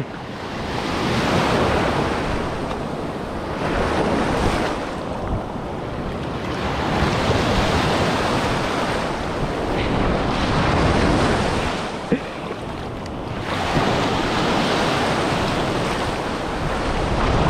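Ocean surf breaking and washing up the beach, swelling and fading in surges every few seconds, with wind buffeting the microphone.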